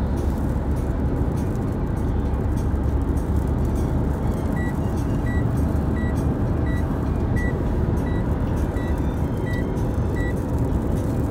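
Steady low road and engine rumble inside a moving car's cabin. A little before halfway through, a dashboard warning chime starts: about nine short high beeps, evenly spaced about 0.7 s apart, stopping near the end.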